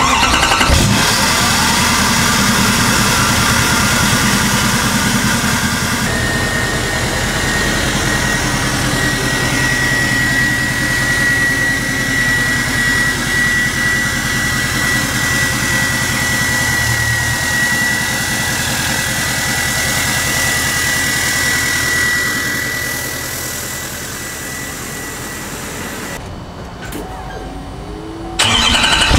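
L5P Duramax V8 turbodiesel pickup starting up, then idling steadily through its large exhaust tip, with a thin steady high whistle over the engine note for most of the time. The engine sound drops quieter near the end.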